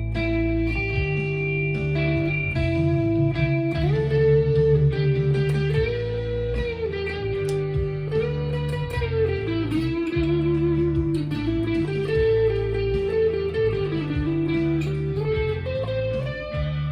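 Stagg SEL-STD electric guitar with its humbuckers coil-split, played through a Fender Mustang LT25 modelling amp: a lead line of held single notes with string bends rising and falling in pitch, over steady low notes that change every second or two.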